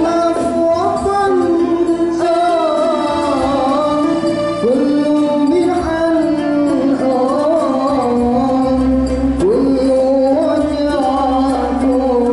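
A man singing into a microphone through a PA system over instrumental accompaniment, ornamenting the melody. Each new phrase opens with a note that slides up, about four and a half seconds in and again about nine and a half seconds in.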